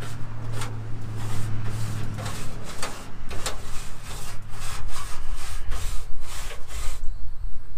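Stiff-bristled car wash brush scrubbing the degreaser-wet steel underside of a truck hood, in back-and-forth strokes about twice a second; the strokes stop near the end.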